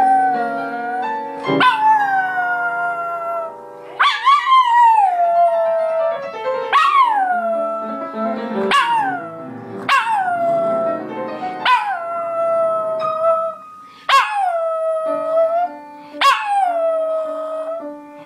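Small long-haired dog howling along to piano music: about nine howls in a row, each starting high and sliding down in pitch, over held piano notes.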